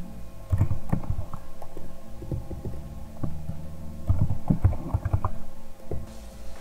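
Computer keyboard being typed on: irregular, muffled key thumps in two quick runs, over a low steady hum.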